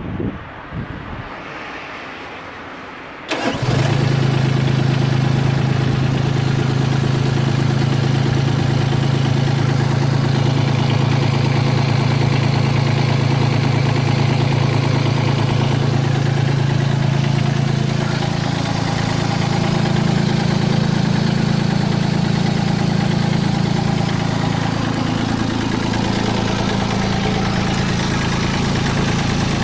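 Mitsubishi MM20CR mini excavator's diesel engine starting about three seconds in, then running steadily at idle.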